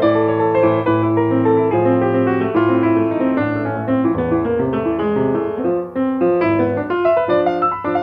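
Nine-foot German-built Steinway concert grand piano played in a continuous stream of quick, even notes over held bass notes.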